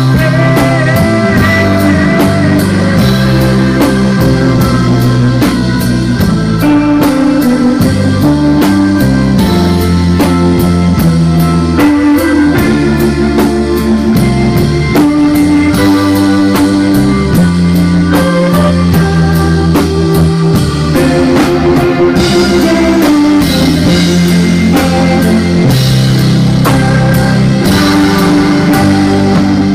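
Live band playing an instrumental number: electric guitar, electric bass and drum kit together, loud, over a steady drum beat.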